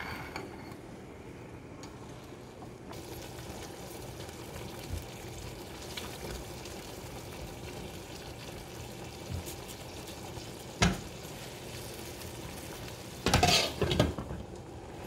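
Chicken in red pasta sauce simmering in a stainless skillet with a steady bubbling hiss while a silicone spatula stirs it, with a sharp knock of the spatula on the pan. Near the end the glass lid clatters back onto the skillet.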